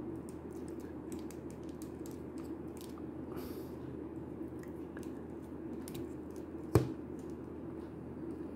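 Small clicks and rubbing as the plastic parts of a Jada Toys M. Bison action figure are handled and swapped, with one sharp click about seven seconds in as a piece snaps into or out of place. A steady low hum runs underneath.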